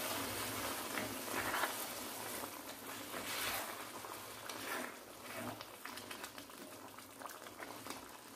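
Chicken curry bubbling in a metal kadai as a spatula stirs through the thin, watery masala, with small crackles and a few brief scrapes; it gets gradually quieter toward the end. The gravy is heating up after hot water has just been added.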